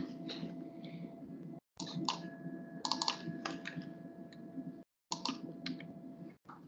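Irregular keyboard typing and clicks at a computer console over a steady low hum. The sound cuts out completely for short moments a few times.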